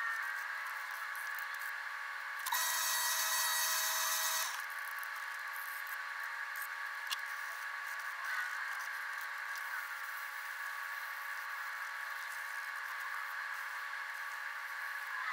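Sped-up workshop ambience: a steady machine hum, with a louder burst of rushing noise lasting about two seconds starting about two and a half seconds in, a single sharp click a few seconds later, and a few short chirps.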